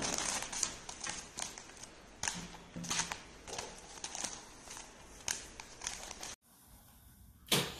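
Newspaper rustling and crinkling in quick, uneven bursts as a cat scrabbles and bites at a paper toy lying on it. Near the end comes a single short, sharper knock.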